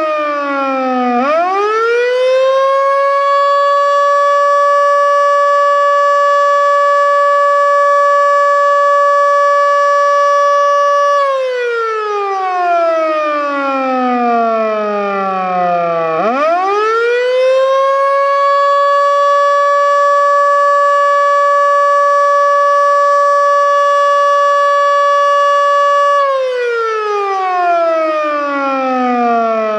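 Federal Signal Model 2 outdoor warning siren sounding the Attack signal: a slow wail that winds up in about two seconds, holds a steady tone for about eight seconds, then winds down over about five seconds, twice over. The uploader judges its bearings to be already not too good.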